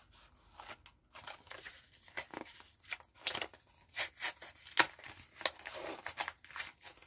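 Pokémon card packaging being handled and opened: plastic and foil crinkling and tearing in scattered sharp crackles and snaps.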